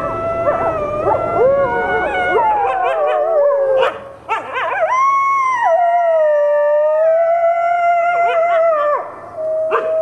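Canines howling: several overlapping howls that glide up and down, then one long howl that rises, holds and slides down, and a new, steady howl that starts near the end.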